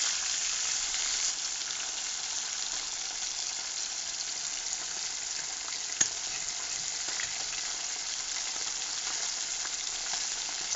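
Small fish sizzling as they shallow-fry in hot oil in a metal kadai: a steady high hiss, a little louder in the first second as the last fish go in. A metal spatula clicks once against the pan about six seconds in.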